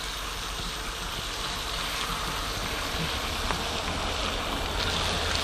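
Beef bacon sizzling steadily on a flat-top griddle, with a faint low hum underneath; the sizzle grows slightly louder near the end.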